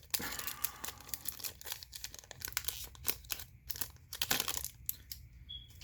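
Foil Pokémon card booster pack being torn open and crinkled by hand: a run of irregular crackles and rustles that thins out near the end.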